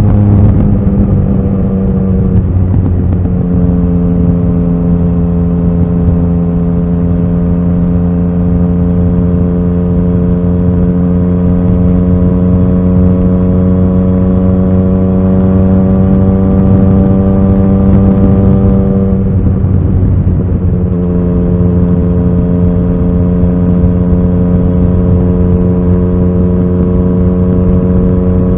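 Yamaha XSR900's inline three-cylinder engine running on the road. Its pitch drops over the first couple of seconds, then holds steady and creeps slowly upward. About twenty seconds in the revs dip briefly, then the engine settles back into a steady cruise.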